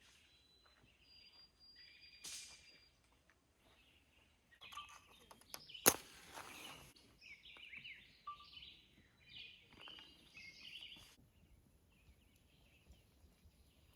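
Wild birds singing and chirping, busiest in the middle stretch, with one sharp click about six seconds in.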